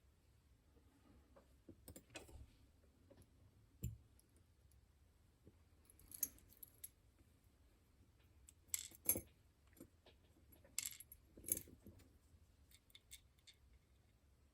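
Faint, scattered clicks and light metallic clinks of tiny lock pins and springs being handled and set down on a hard surface. There are about half a dozen separate taps, the sharpest a pair near the middle.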